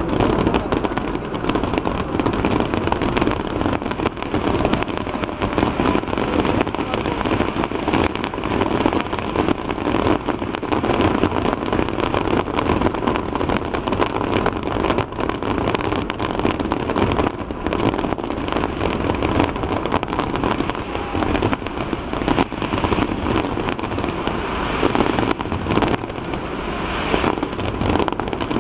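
Fireworks display: a dense, continuous crackle of many small pops over a steady low rumble.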